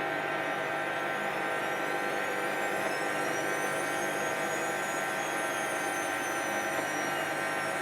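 Hoover 10 kg washing machine on its 1400 rpm spin: a steady motor and drum whirr with a high whine that drifts slowly up and then down in pitch.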